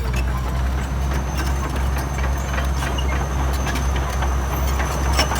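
Bulldozer's diesel engine running steadily with a low hum, over scattered clanks and knocks. A thin, steady high whine runs through it.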